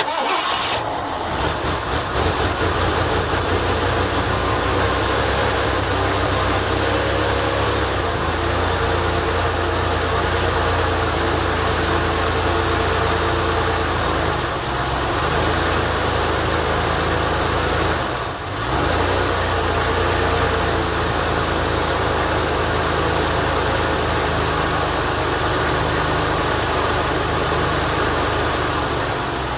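1989 Lincoln Town Car's 5.0-litre (302) V8 starting on a freezing morning, catching within about a second and settling into a steady cold idle.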